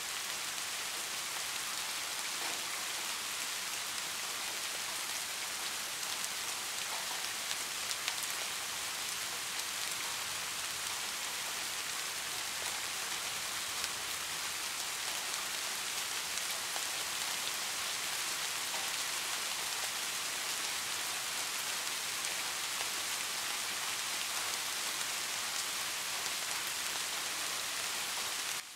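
Steady rain falling: an even hiss, with a couple of louder drops now and then.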